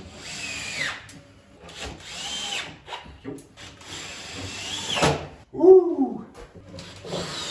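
Power drill-driver running in four short bursts, each winding up in pitch and then slowing down, as it drives screws into a wooden strip. Between the third and fourth burst comes a brief pitched squeak, the loudest sound.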